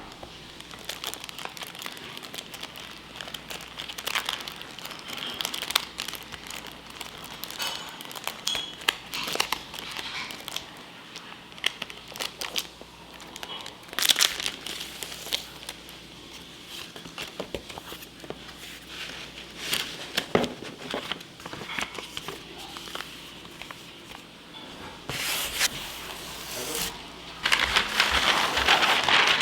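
Crinkling and rustling handling noise with many scattered sharp clicks and taps. A steady rushing noise sets in near the end.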